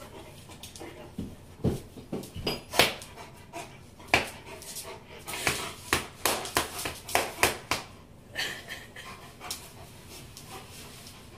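A large dog panting and sniffing in short, irregular breathy huffs as it paws at and nuzzles a distressed boy, loudest about three seconds in.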